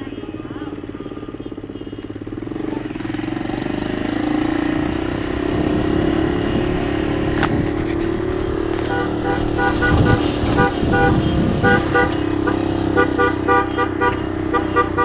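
Motorcycle engine running, with vehicle horns honking in short repeated beeps from about nine seconds in.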